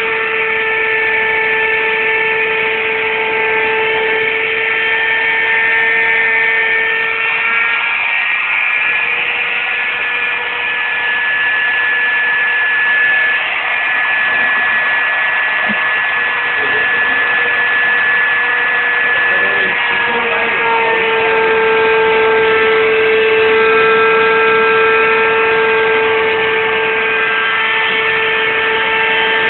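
CNC router running: a steady machine whine with several overtones, its pattern of tones changing about 8 seconds in and again about 20 seconds in.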